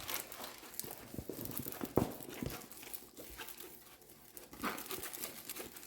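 Rustling and small clicks from a rolled diamond painting canvas, tarpaulin-like with a plastic cover, being unrolled and handled, with one sharper knock about two seconds in.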